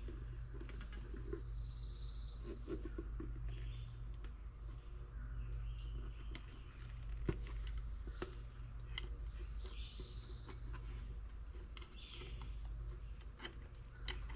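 Faint clicks and rubbing from hands working a rubber inner tube into a small wheelbarrow tire, with one sharper click about seven seconds in. Underneath runs a steady high-pitched trill and a low hum.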